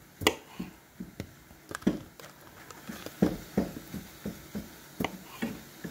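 Kitchen knife chopping cherry tomatoes directly on a hard countertop, with no cutting board: a quick, irregular run of short, sharp taps of the blade on the counter, about three a second.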